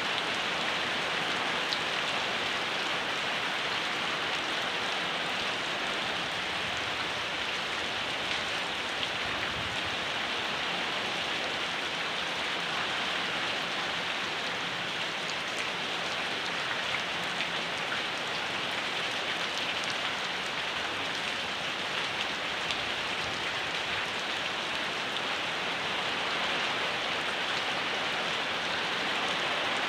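Steady rain falling, an even hiss of many drops with scattered individual drop taps.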